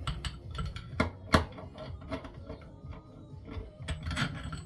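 Metal hand tools clicking and knocking, irregularly, as a socket wrench and a long screwdriver are worked on a scooter's front fork leg, with two sharper knocks about a second in.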